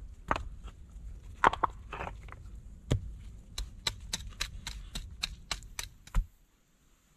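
Sharp knocks and clinks of a small hammer striking flat slate-like stones to trim them. The blows are scattered at first, then come quickly and evenly at about four a second from halfway in, ending with a heavier knock shortly before the end.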